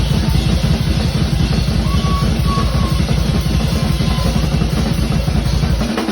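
Tama Superstar Hyperdrive drum kit played as a live solo: a fast, unbroken run of bass drum strokes with cymbals washing over it. Just before the end the kick drops out and a quick roll on the higher drums takes over.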